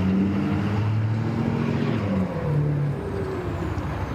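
Motor engines running at low speed, a steady low drone whose pitch shifts, with one tone falling slightly about two seconds in.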